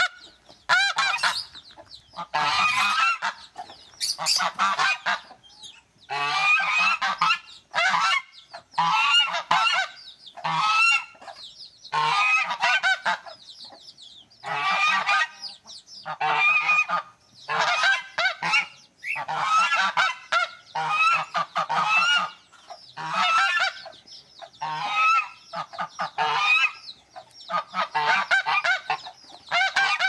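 Domestic geese honking over and over, a call roughly once a second.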